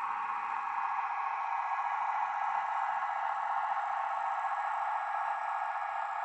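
Diesel engine sound of a British Rail Class 158 DMU, played by an OO gauge model train's DCC sound decoder through its small on-board speaker. The engine runs steadily, sounding thin with no deep bass.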